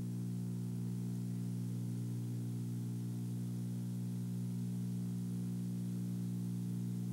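Steady low electrical hum with a stack of even buzzing tones, over a constant hiss.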